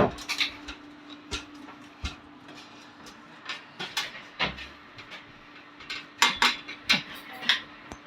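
Irregular sharp clicks and metal knocks of hand tools at work on an engine being taken apart, over a steady hum.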